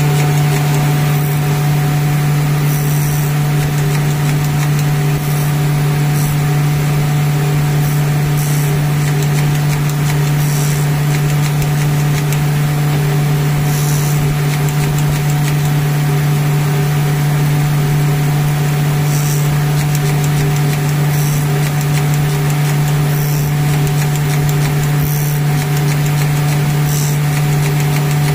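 CNC bangle-cutting machine running steadily: a loud, even motor hum with short high-pitched hisses every second or two while it cuts a pattern into a gold bangle.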